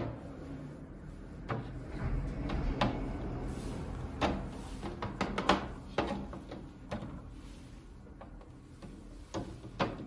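Hen's eggs being set down one at a time in a plastic incubator tray: a string of light, irregularly spaced taps and clicks of shell against plastic.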